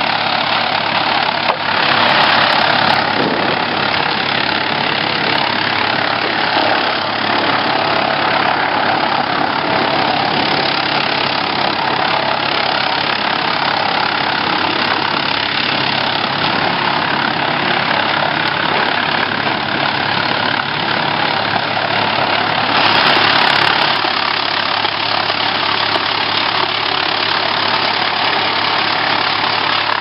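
Wood chipper running, a steady engine drone mixed with dense mechanical noise. It grows louder for a second or so about two seconds in and again about three-quarters of the way through.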